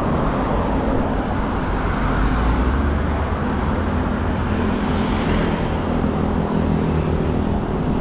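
Road traffic going by on a city street: cars and motorbikes passing with a steady rumble of tyres and engines. An engine hum from a nearby vehicle stands out through the second half.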